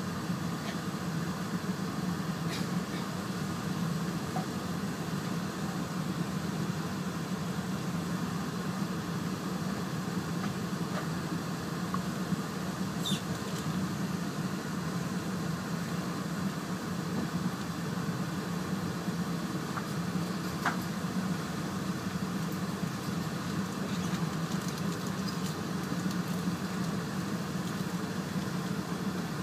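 Steady low rumble of an E4 series Shinkansen train heard from inside the cabin as it rolls along a station platform, with a few faint clicks.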